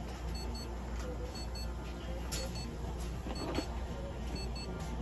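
An electronic device beeps in short high pairs, about once a second, over a steady low electrical hum, with a few faint clicks.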